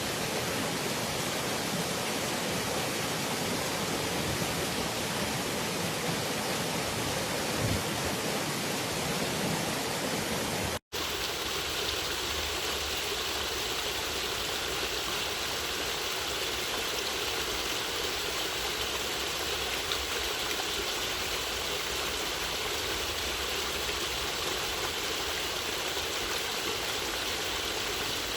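Natural running water rushing steadily. About eleven seconds in it cuts off for an instant and resumes as a brighter, hissier rush.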